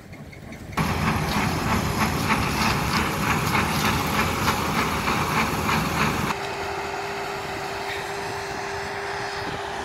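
Combine harvester running while it unloads shelled corn into a trailer, a loud dense mechanical rattle. About six seconds in it gives way to a quieter, steady engine drone with one held tone.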